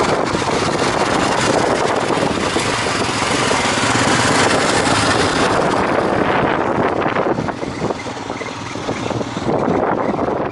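Royal Enfield Himalayan's single-cylinder engine running on the move, under a dense rush of wind on the microphone. The sound eases for a second or so about three-quarters of the way through, then comes back up before cutting off suddenly.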